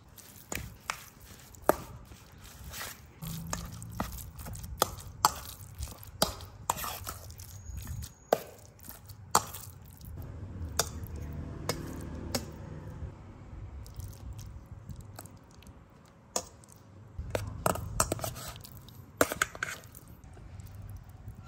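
Food preparation with kitchen utensils: irregular sharp knocks and clinks, over a low rumble that comes and goes.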